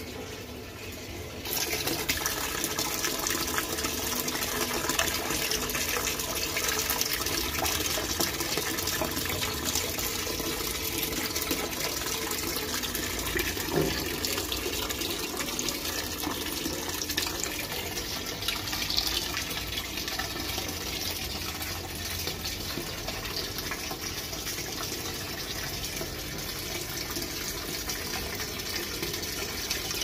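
Water streaming from the inlet into the tub of a Samsung 6 kg top-load washing machine as it fills, a steady rushing splash that starts suddenly about a second and a half in.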